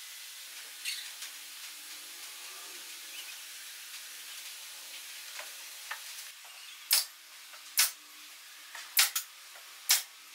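Pneumatic nail gun firing about five times in quick succession, each shot a short, sharp crack with a burst of air. It starts about seven seconds in, after a quiet stretch of faint clicks as wooden sled parts are positioned on the table saw.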